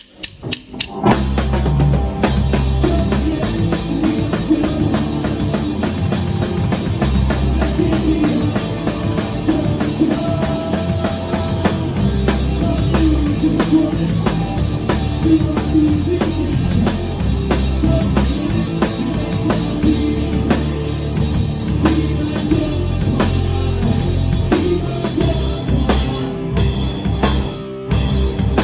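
Rock band playing a very short song, heavy on drum kit and bass, crashing in about a second in and stopping abruptly near the end.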